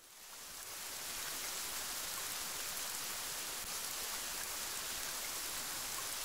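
Steady rain, fading in over the first second.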